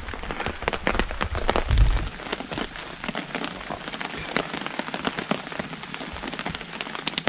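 Heavy rain pattering steadily on a tarp overhead, dotted with many sharp clicks, as a wood campfire crackles and pops beneath it.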